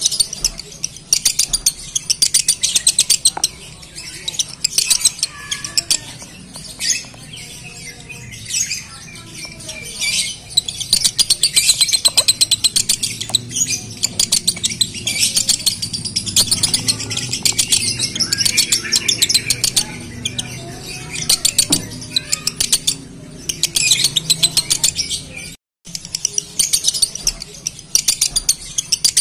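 Male Fischer's lovebird singing its long, rapid, high 'konslet' chatter, a fast unbroken run of ticking notes with a short break near the end. This is the song of a male in breeding condition ('birahi').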